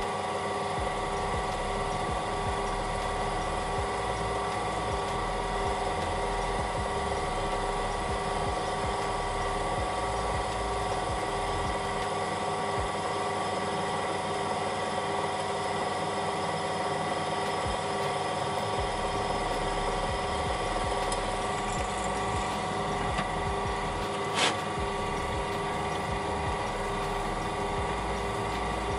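Bench drill press motor running steadily while a 3 mm metal drill bit bores holes in a metal model part. A single sharp click sounds near the end.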